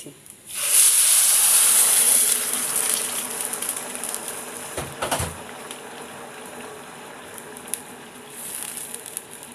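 Hot water poured into a pan of ghee-fried rice, hissing loudly for about two seconds as it hits the hot pan. It then settles into a softer, steady sizzle and bubbling as it comes to the boil, with a short bump about five seconds in and a wooden spoon stirring near the end.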